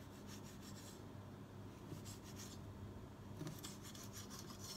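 Kitchen knife slicing through a rolled log of thin dough with walnut filling on a granite countertop: faint, repeated short scraping cuts.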